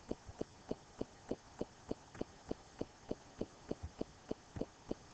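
Steady, evenly spaced ticking or knocking, about three a second.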